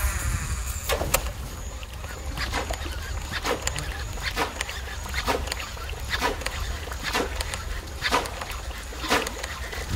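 A surface lure jerked across still water, each pull throwing a short splashing chug, roughly once a second.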